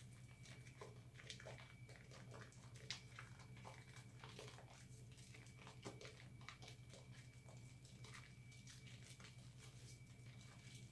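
Faint wet squishing and crackling as hands knead a lump of recycled soap into thick lather: many small irregular clicks and pops of foam. A steady low hum runs underneath.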